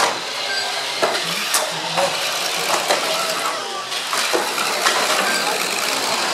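Small RC banger cars racing on a carpet track: their motors run steadily, and about ten sharp plastic knocks and clacks come through it as the cars bump one another and the barriers.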